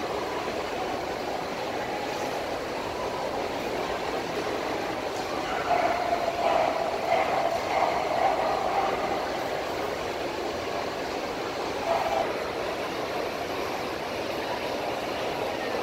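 Steady background noise of a busy show hall, with distant indistinct voices rising for a few seconds in the middle and briefly again later.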